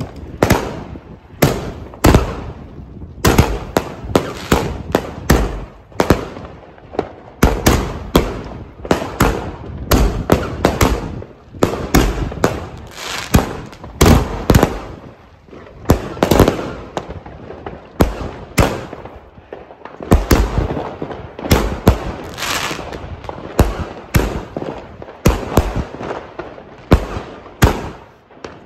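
Consumer firework cake firing a rapid, continuous series of shots, about one to two bangs a second, each a sharp launch and burst, with crackling hiss between them.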